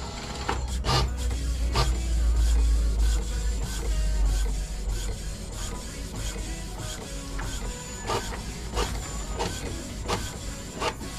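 Brother MFC-J430W inkjet printer printing a test page after a print-head cleaning: its motors run and the head carriage clicks back and forth repeatedly. The print is a check of whether the clogged colour nozzles now fire.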